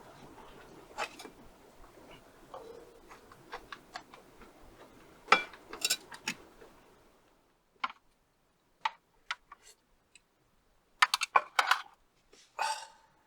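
Irregular light clicks and taps, a few at a time with pauses between them. A low background hiss drops out about seven seconds in.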